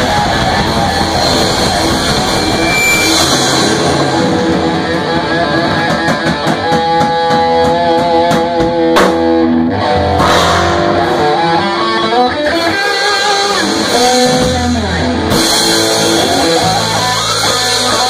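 Rock band playing: electric guitar, electric bass and drum kit, with no vocals. Partway through, the cymbals ease off and held guitar notes stand out, then the full band comes back in.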